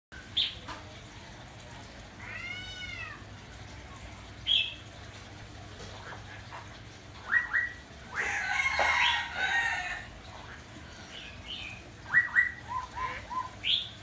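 Cuban amazon parrot calling: a string of short whistles and chirps, with a longer, rougher squawk from about eight to ten seconds in, then a quick run of short notes near the end.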